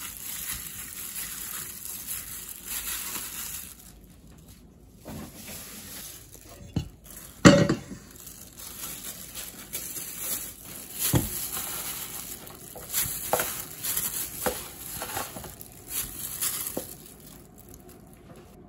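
Gloved hand kneading and squishing marinated meat in a stainless steel bowl, a wet squelching. A sharp knock about seven and a half seconds in, then a string of smaller thuds and clanks as raw pork pieces go into an empty stainless steel bowl.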